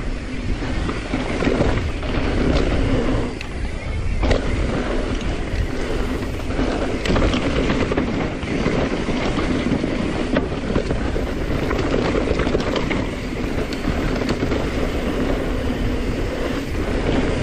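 Mountain bike rolling fast down a dry, loose dirt trail: steady tyre noise over dirt and gravel, with frequent small clicks and knocks from the bike over bumps, and wind on the microphone.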